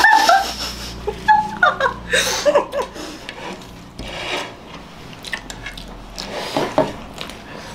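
Brief giggles and breathy voice sounds, then soft mouth noises of biting and chewing as two girls eat whipped-cream cake face-first, with no hands.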